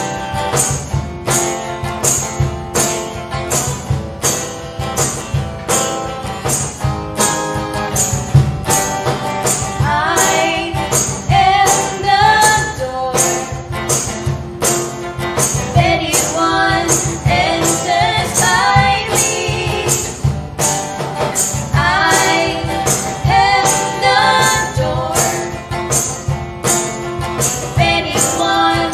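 Children's Bible-memory song about the books of the Bible: instrumental music with a steady beat, and singing that comes in about ten seconds in.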